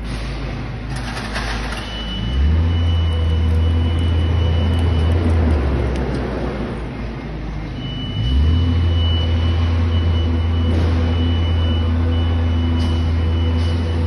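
Linde electric reach truck's hydraulic pump motor running with its mast raised high: a steady low hum with a thin high whine over it, starting about two seconds in, stopping near the middle and starting again a few seconds later.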